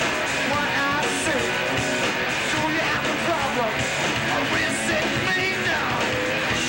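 Live rock band playing: electric guitar and drums with cymbal strokes, and a male singer shouting and singing over them.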